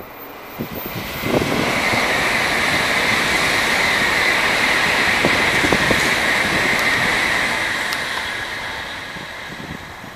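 Tokaido Shinkansen N700A high-speed train passing at speed: a rushing noise that swells over the first two seconds, holds steady with a strong hiss for several seconds, then fades as the train draws away.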